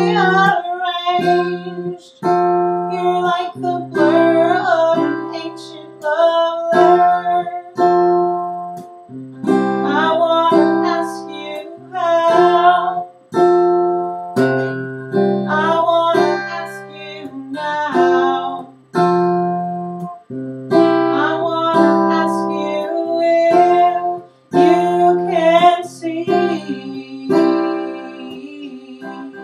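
Acoustic guitar strummed in steady chords, with a woman singing over it.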